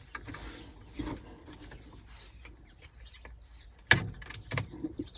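Plastic wiring connector clip on a Range Rover L322 air-suspension valve block being squeezed and pulled free. Faint handling rustle, then a sharp click about four seconds in as the clip lets go, and a smaller knock just after.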